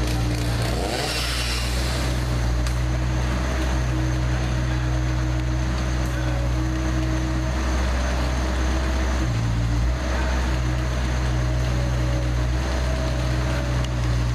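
Large engine running steadily with a low hum, briefly dipping about nine and a half seconds in.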